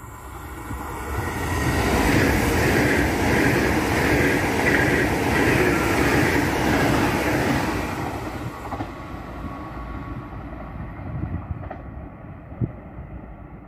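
Trenitalia Frecciarossa high-speed electric train passing through the station at speed without stopping: a rush of wheel and air noise that swells about two seconds in, holds loud, and fades away after about eight seconds. A single sharp click near the end.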